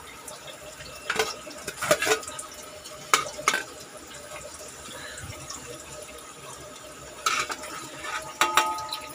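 Chicken pieces going into a pot of hot oil and fried masala, sizzling steadily, with about six sharp knocks and clatters against the pot.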